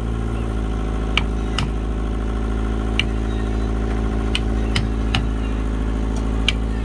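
Seven sharp taps at uneven intervals from a hand tool striking at the seam of a wooden boat hull. Under them an engine runs with a steady drone.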